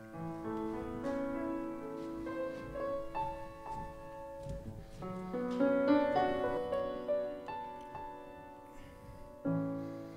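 Piano playing slow, sustained chords with a melody line over them, the notes left to ring.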